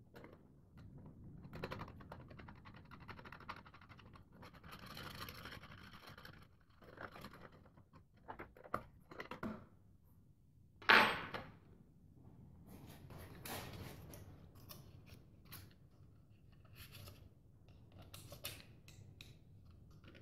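Hands and a small tool working at the valve of a folded rubber inner tube on a wooden workbench: scattered scraping, rubbing and faint clicks, with one sharper, louder knock about eleven seconds in.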